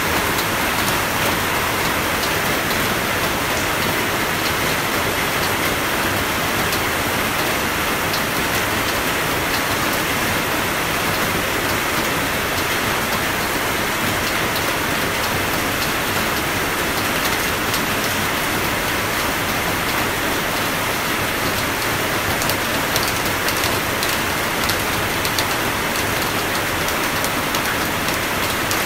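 Steady rainfall, a dense even hiss with many small drop ticks in it; no thunder is heard.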